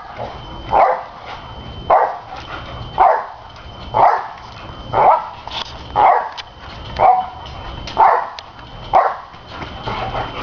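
Dog barking in a steady rhythm while bouncing on a trampoline: about ten short barks, roughly one a second.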